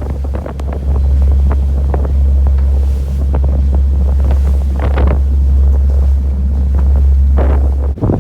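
Fishing boat under way, with heavy wind buffeting the microphone as a loud steady low rumble; scattered knocks and spray-like swells run over it, and the rumble cuts off abruptly near the end.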